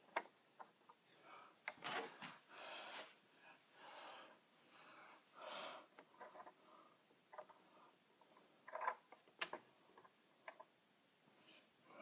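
Faint scattered clicks, taps and soft rustling of small plastic model-kit parts being handled as the propellers are fitted.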